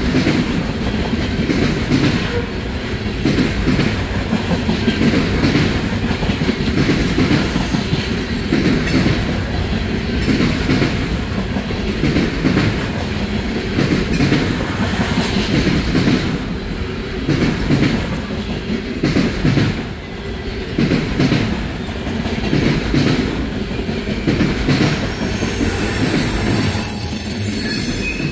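Trash cars of a Norfolk Southern freight train rolling past at speed: a steady rumble and clatter of steel wheels on the rails, with frequent clicks over the joints. A high-pitched wheel squeal comes in near the end.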